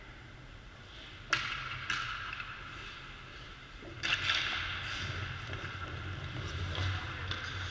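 Ice hockey sticks and puck clacking, two sharp cracks about a second apart, then a louder clatter near four seconds in, followed by the hiss of skate blades scraping the ice.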